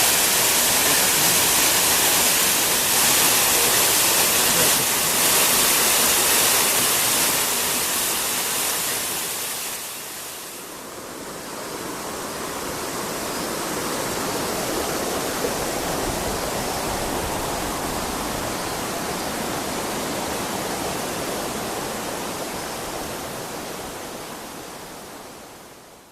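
Small waterfall, Rokudan Falls in the Atera gorge, rushing steadily as a full hiss of falling water. About ten seconds in it dips and turns duller and a little quieter, then fades out at the very end.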